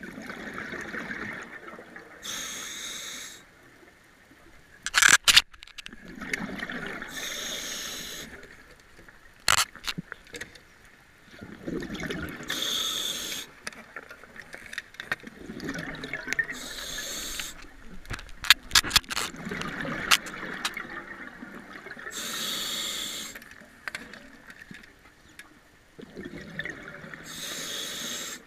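A scuba diver breathing through a regulator underwater, about one breath every five seconds: a drawn-in rush of air, then a burst of exhaled bubbles. A few sharp clicks or knocks of gear cut in, the loudest of them about five seconds in and twice more later.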